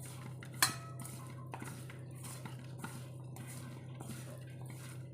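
A spoon clinking and scraping against a bowl while tossing marinated tofu and vegetables. There is one sharp, ringing clink just over half a second in, then softer clicks and scrapes, over a steady low hum.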